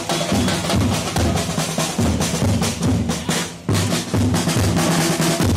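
A group of drums beaten together with sticks in a steady, repeating marching rhythm: large metal-shelled barrel drums and a side drum. The beat drops out briefly about three and a half seconds in, then resumes.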